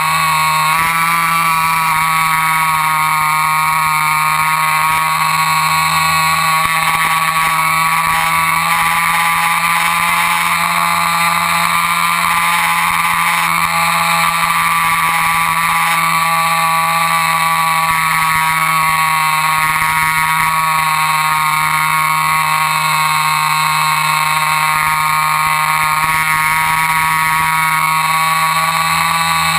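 RC airplane's motor and propeller running steadily with a high whine, its pitch wavering slightly.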